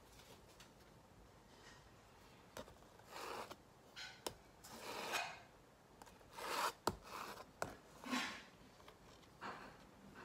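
Palette knife scraping and dabbing acrylic paint onto a canvas pad: a series of short scraping strokes, with a few sharp taps of the blade on the surface.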